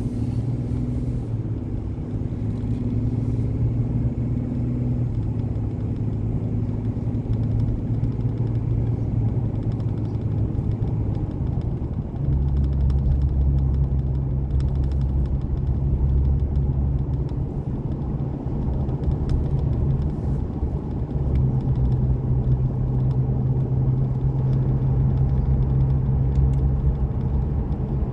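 A car being driven: a steady engine and road drone that drops to a deeper, louder note about twelve seconds in.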